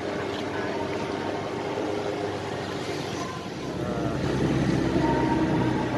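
A vehicle engine running on the move. Its sound swells and grows louder about three and a half seconds in as it picks up speed.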